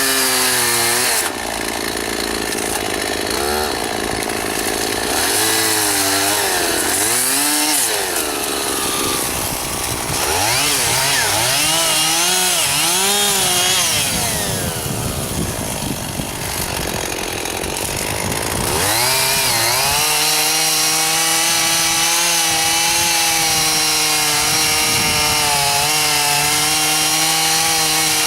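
Two-stroke chainsaw revving up and down in repeated throttle bursts, then held at steady high revs for the last nine seconds or so.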